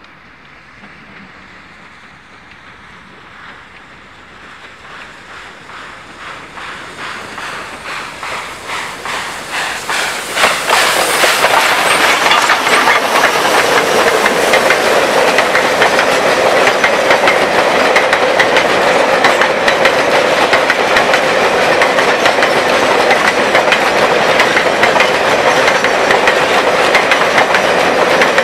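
A China Railways JS (Jianshe) class 2-8-2 steam locomotive working up a grade. Its regular exhaust beats grow steadily louder as it approaches. From about ten seconds in, loaded coal hopper wagons pass close by, their wheels clicking over the rail joints in a loud, steady clatter.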